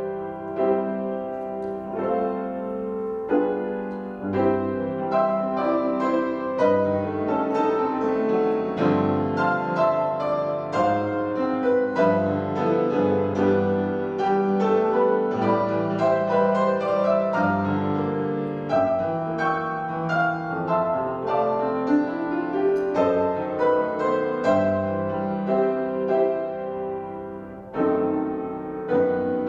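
Solo piano playing a slow, flowing instrumental piece, notes struck in a steady stream.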